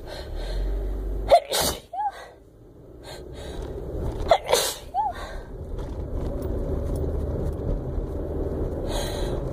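A woman sneezing twice, about three seconds apart, each sneeze followed by a brief rising-and-falling tone, over the steady low rumble of a moving car's cabin.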